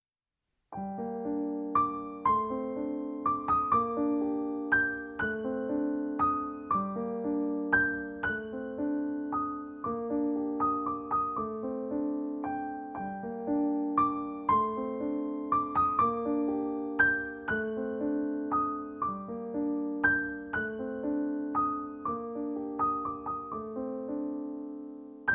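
Background piano music: a slow, gentle piece of melody notes over repeating chords, starting about a second in.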